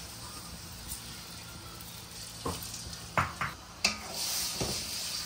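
Pounded garlic, shallots and ginger frying in oil, sizzling, with a few sharp knocks of a utensil against the pan in the second half; the sizzle grows louder and brighter about four seconds in.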